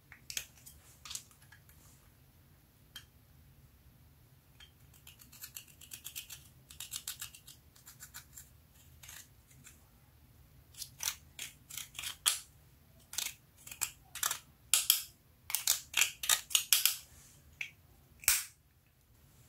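Pressed eyeshadow being scraped and broken out of its plastic compact with a small pick: a series of short, sharp scratching strokes that come in quick flurries, loudest and most frequent in the second half.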